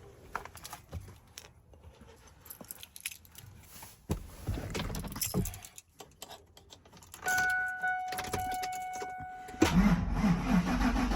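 Car keys jangling and clicking, then a steady electronic tone for about two seconds. Near the end, the car's starter begins cranking the engine with a loud, pulsing churn.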